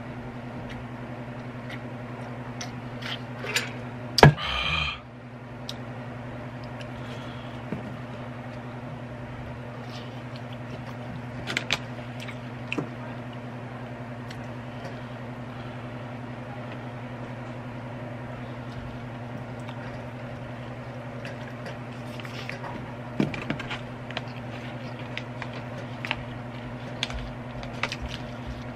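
Close-miked eating sounds: a double cheeseburger being handled and squeezed, with scattered soft squishes and clicks, over a steady electrical hum. About four seconds in, a sharp knock is followed by a short noisy burst.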